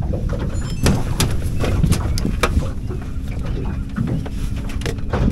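Wind rumbling unevenly on the microphone aboard a small open fishing boat, with scattered sharp knocks and thumps from the boat's hull and deck.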